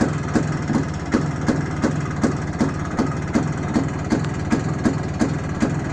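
IZh Planeta 2 motorcycle's single-cylinder two-stroke engine idling steadily, with a sharp tick repeating a little under three times a second. It is running well after a kickstart ratchet replacement and clutch adjustment.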